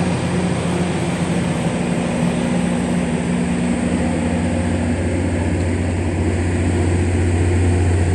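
Heavy engine running steadily at idle, a loud even low hum with no change in speed.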